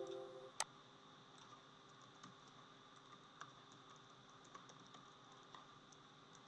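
Faint, sparse key clicks of typing on a computer keyboard, with a sharp click about half a second in. A ringing tone fades out in the first half second.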